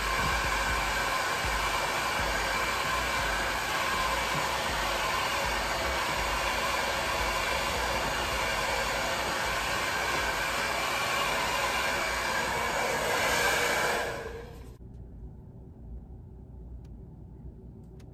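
Handheld hair dryer blowing steadily on the top of a synthetic wig, then cutting off abruptly about fourteen seconds in.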